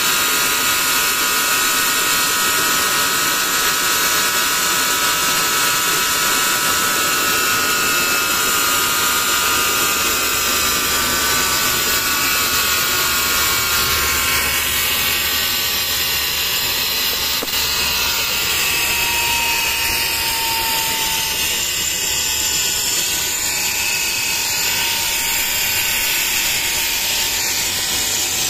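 Steam hissing hard from a valve nozzle into a small handmade steam turbine that spins a DC motor used as a generator, loaded with a 12-volt lamp. A steady high whine from the spinning turbine and generator rides over the hiss and slowly sinks in pitch.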